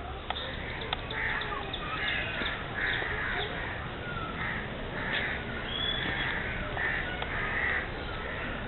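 Harsh bird calls, repeated about ten times at irregular intervals over a steady background hiss, with a couple of sharp clicks in the first second.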